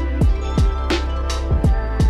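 Background music with a steady beat: deep drum hits that drop in pitch, sharper hits between them, and held tones underneath.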